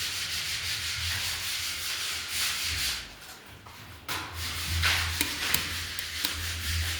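Sandpaper rubbing over a gypsum or skim-coated surface in repeated scraping strokes, with a short pause about three seconds in.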